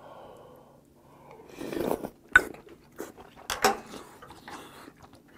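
A man eating a spoonful of seonji (congealed ox blood) hangover soup: chewing and mouth noises. About halfway through come a few sharp clicks of utensils against the table or dishes.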